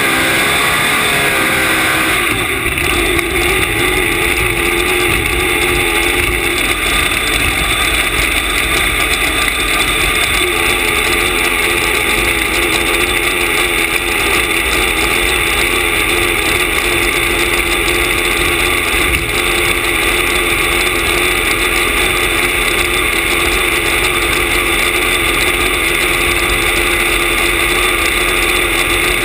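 Supercharged nitro-burning engine of a front-engine nostalgia top fuel dragster idling loudly and steadily, with a slight waver in pitch in the first couple of seconds.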